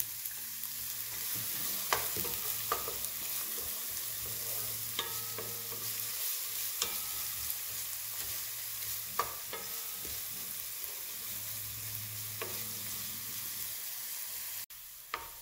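Chopped onions sizzling in oil in a nonstick frying pan as they start to fry, stirred with a wooden spatula that scrapes and taps against the pan every second or two. The sizzle drops suddenly near the end.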